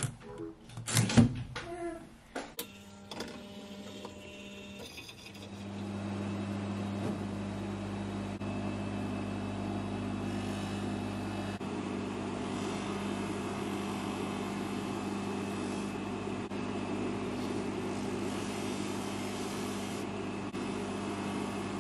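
A few clicks and knocks of handling in the first couple of seconds, then an electric motor comes on about five seconds in and runs steadily with a low hum: a bench polishing motor spinning a stitched cotton buffing wheel.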